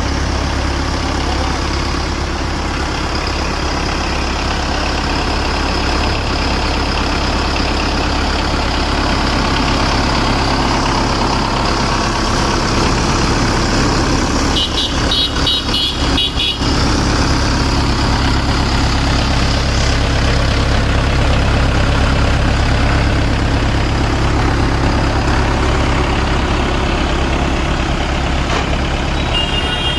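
Mahindra 585 XP Plus tractor's four-cylinder diesel engine running steadily at a low, even pace. A brief high chirping sound cuts in about halfway through and again near the end.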